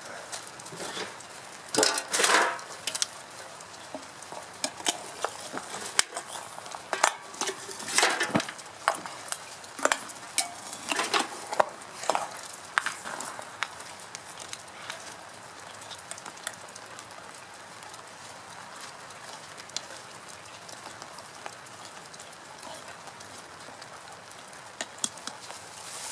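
Dry straw rustling and crackling as it is fed by hand into a straw-fired rocket stove and catches fire. The crackles come thickest in the first half, then thin out to a few scattered clicks.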